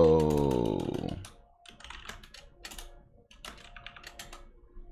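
Typing on a computer keyboard: irregular, scattered keystrokes as a short terminal command is typed.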